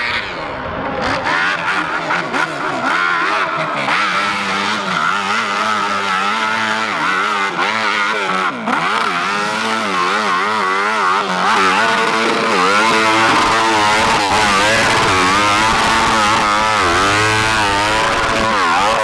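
Motorcycle engines revving hard, their pitch rising and falling again and again as the throttle is worked. The sound cuts off abruptly at the end.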